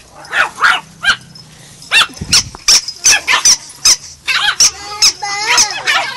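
A pack of Yorkshire terriers yapping in quick, high-pitched barks as they play, with longer wavering yelps near the end.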